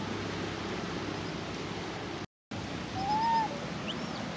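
Infant rhesus macaque crying: one short coo about three seconds in that rises and falls in pitch, over a steady outdoor hiss. A faint high chirp near the end, and a brief cut-out in the sound just before the call.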